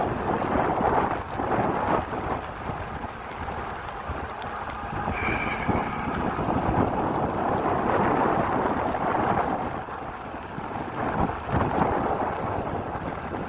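Strong wind buffeting the microphone, with falling rain, while riding an e-bike: a steady low rumbling rush that swells and eases. A brief high squeal comes about five seconds in.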